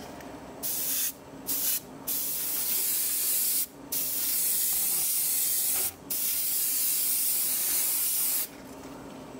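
Airbrush spraying paint onto a metal cube frame in a run of hissing bursts: two short ones, then three longer ones of about two seconds each.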